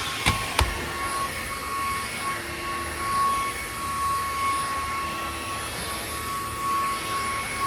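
Cordless vacuum cleaner's motor running with a steady high whine, with two sharp knocks of handling shortly after the start.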